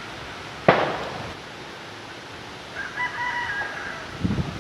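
A sharp thump about a second in, then a rooster crowing once, for about a second, toward the end.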